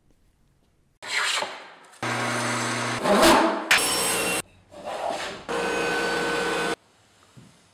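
A quick montage of woodshop sounds in abrupt cuts: a scraping stroke on wood, then a steady machine hum, a loud rising sweep, and short steady runs of power saws such as a table saw and a bandsaw.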